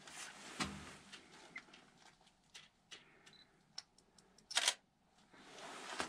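Faint clicks and handling noises from a hand-held camera being operated, with one louder, sharp click about four and a half seconds in.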